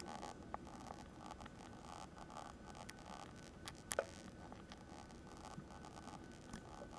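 Mungyo soft oil pastel scratching over a black-painted MDF chalk-art board, sped up so the strokes run together into a fast, machine-gun-like rattle. A sharp click about four seconds in, and a smaller one about half a second in.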